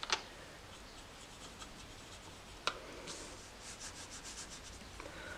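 Faint rubbing and scratching of a watercolour brush working blue paint from a half pan and stroking it onto paper. A light tap comes just after the start and another about two and a half seconds in, then a run of quick brush strokes near the end.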